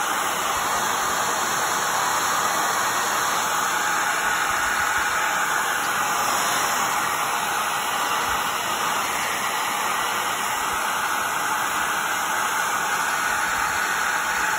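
Steady, loud rushing noise that holds even and unbroken, with no rhythm or distinct tones.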